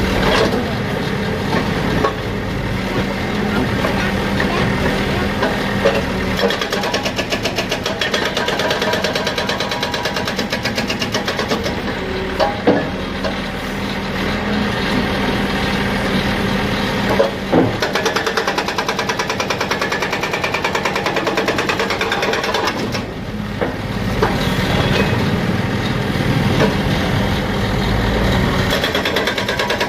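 An engine running steadily with a fast, even pulse, and a couple of short knocks partway through.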